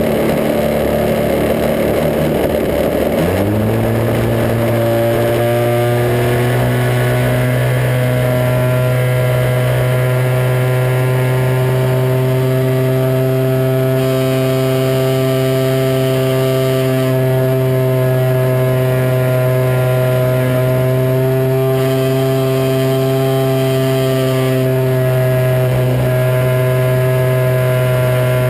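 Engine and propeller of a radio-controlled Extra 260 model aerobatic plane, heard from its onboard camera. Its pitch climbs sharply about three seconds in as the throttle opens, then holds steady at high revs.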